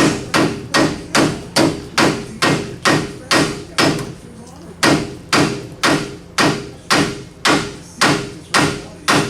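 Mallet hammering repeatedly on a stubborn, stuck part of a GM 12-bolt rear end: even blows at about two to three a second, with a short pause near the middle.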